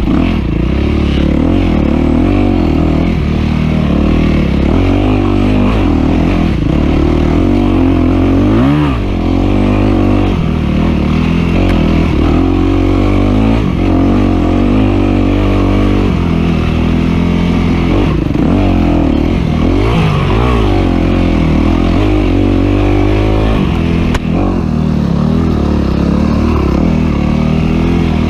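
Off-road dirt bike engine running hard, heard from a camera on the bike or rider; its pitch keeps rising and falling with the throttle through the whole stretch, with a few sharp drops where the rider backs off.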